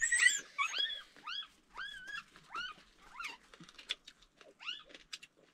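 Dog whimpering: a run of short, high whines, each rising and falling in pitch, that fade out towards the end.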